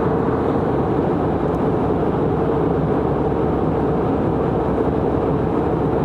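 Airliner cabin noise in flight, heard inside the cabin: a steady rush of engine and airflow noise with a constant hum running through it.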